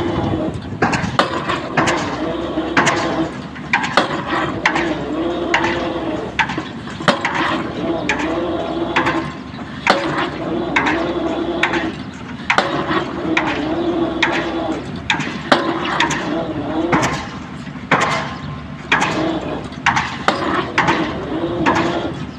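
Excavator working at a pile-driving site: a steady mid-pitched engine or hydraulic drone that rises and falls in stretches, over irregular metallic clanks and knocks.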